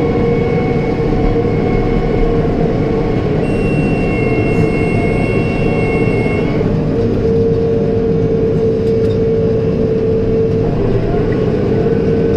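New Holland T5.120 tractor running steadily while pulling a New Holland BR7060 round baler through the hay, with a steady whine. Higher thin tones stop about six and a half seconds in.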